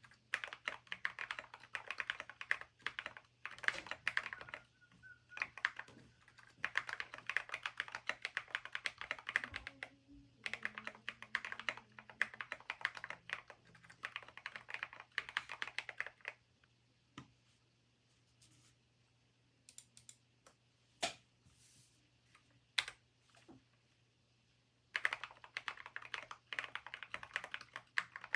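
Typing on a Keychron mechanical keyboard in a sound test: fast runs of keystrokes with short pauses, and a stretch of only scattered single key presses in the middle before fast typing picks up again near the end.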